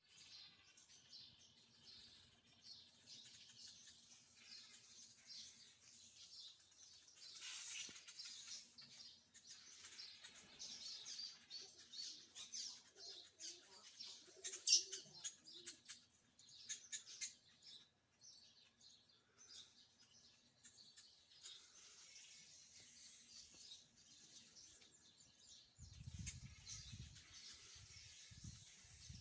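Faint chirping of small birds in garden trees, many short high calls overlapping throughout, with a few sharper ticks in the middle. Near the end there are a few low thumps.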